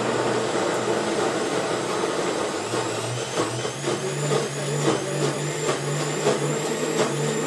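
Electric mixer grinder running, dry-grinding soaked chana dal with green chillies, ginger, curry leaves and garlic into a coarse paste without water. The steady motor whine steps up a little in pitch about three seconds in, and from then on rapid clicks rattle in the steel jar.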